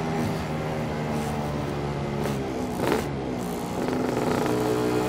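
Two-stroke Lambretta scooter engine running through a SIP Nordspeed touring exhaust while riding, a steady exhaust note. About three seconds in the note dips briefly, then picks up again a little louder.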